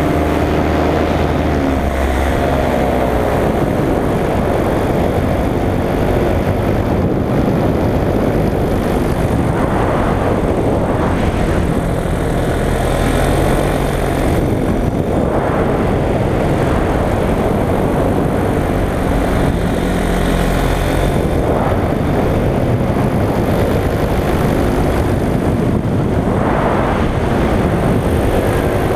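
Paramotor engine and propeller running steadily in flight under a rush of wind noise, the engine's pitch shifting in the first couple of seconds and again near the end.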